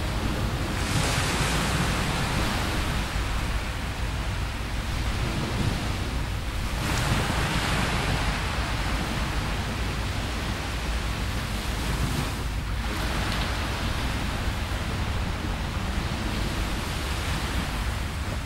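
Small waves washing onto a sandy beach, the surf rising and falling every few seconds, over a low rumble of wind on the microphone.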